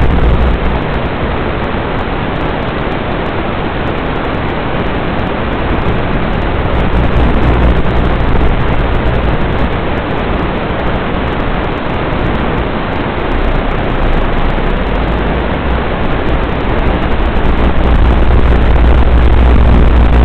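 Loud, steady hiss of static with a low hum under it, the audio track of an analog FPV video receiver's recording. No motor whine rises or falls with throttle. The hiss gets a little louder near the end.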